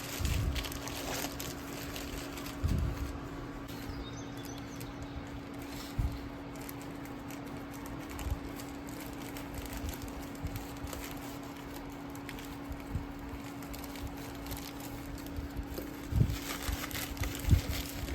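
Handling noises of a package being unboxed: scattered soft thumps and rustles, busier near the end, over a steady low hum.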